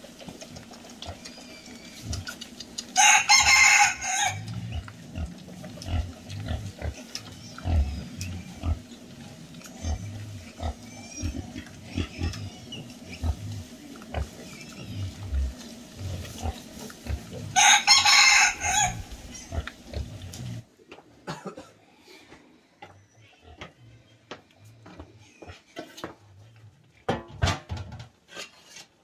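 A rooster crows twice, about fifteen seconds apart, over piglets grunting and rooting at scattered corn. After a sudden drop in level near the end, only scattered clicks and knocks remain.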